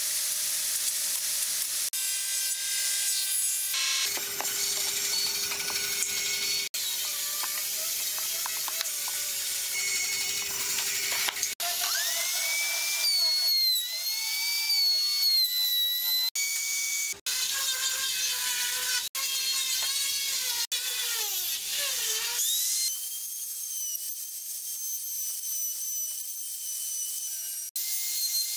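Compact trim router running with a high-pitched whine as the bit cuts into wood. The pitch sags and recovers several times as the bit takes load, and the sound breaks off and changes abruptly about ten times.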